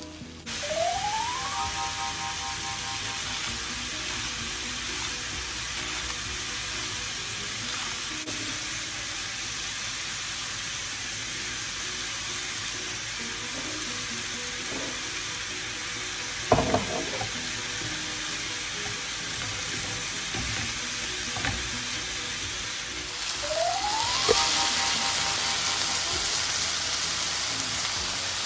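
Ground meat and zucchini sizzling steadily in a frying pan, with a brief sharp clatter about halfway through; the sizzle gets louder near the end.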